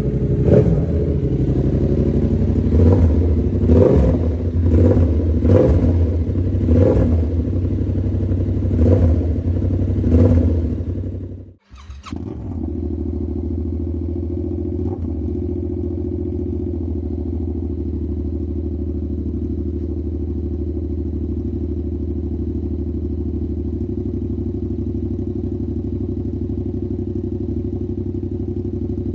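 Yamaha R7 motorcycle engine breathing through an SC Project-style slip-on exhaust with its DB killer removed, blipped about seven times in quick revs. After a brief cut it settles into a steady idle.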